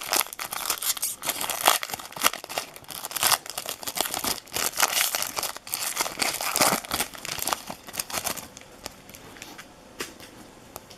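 Baseball card pack wrappers being torn open and crinkled in the hands, a dense crackling rustle. It dies down about eight and a half seconds in, leaving only a few faint ticks.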